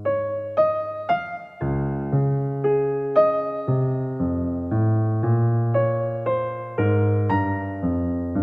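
Background piano music: a melody of single notes about every half second over held low bass notes.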